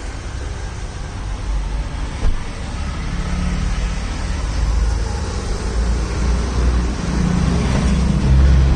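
A motor vehicle engine running with a steady low rumble that grows gradually louder.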